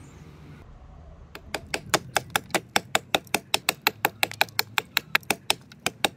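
Hatchet blade chopping into a wooden handle blank to rough out its shape: a fast, even run of sharp chops, about five a second, starting about a second in.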